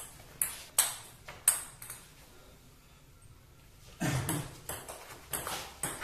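Table tennis ball clicking off bats and the table: a few single hits in the first second and a half, a short pause, then a quicker run of hits from a rally starting about four seconds in.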